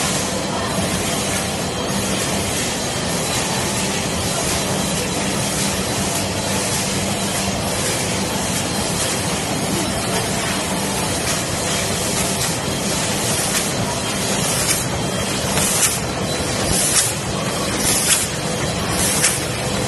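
Steady noise of an automatic packing line running: a bucket-elevator conveyor feeding a rotary pouch packing and sealing machine. In the last few seconds short hissing bursts come about once a second, in time with the rotary packer's cycle.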